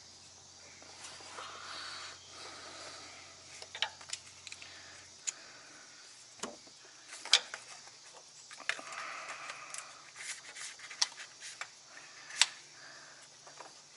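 Hand tools and metal parts clicking, tapping and scraping during work on a truck starter: scattered sharp clicks over faint rustling.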